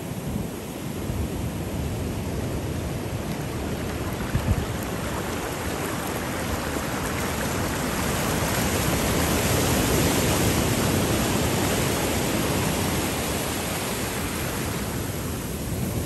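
Ocean surf washing up over a shallow sandy beach: a steady rush of water that swells to its loudest about ten seconds in, then eases off.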